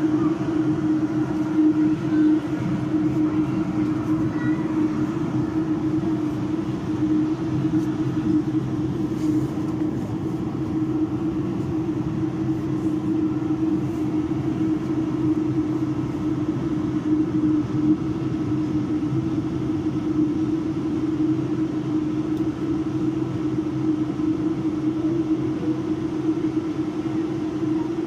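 Steady drone of an MBTA Red Line subway car heard from inside the car, a low hum with a constant tone running under it.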